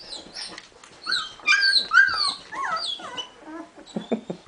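A litter of two-week-old border collie puppies whining and whimpering. There are several high, overlapping cries that rise and fall in pitch, loudest about a second and a half to two seconds in.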